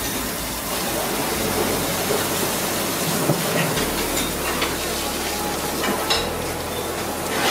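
Tap water running steadily from a spray faucet and splashing into a stainless steel sink as hands rub and rinse pieces under the stream, with a few light clicks of handling.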